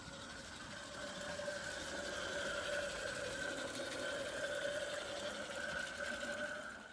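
A 16mm-scale garden railway locomotive running over a model bridge: a steady mechanical whir with a pitched hum, growing louder about a second in as it approaches, loudest while it crosses, then dropping and cutting off abruptly at the end.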